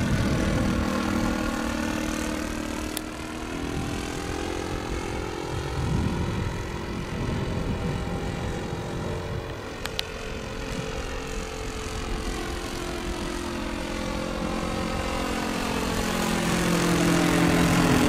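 A single-cylinder OS 95 four-stroke model engine in a radio-controlled de Havilland DH.60 Gipsy Moth runs steadily in flight overhead. Its pitch and loudness rise and fall as the plane passes: quieter through the middle, louder again near the end as it comes back close.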